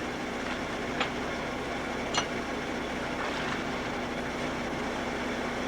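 Steady engine drone of machinery running, with a constant low hum, and two short sharp clicks about one and two seconds in.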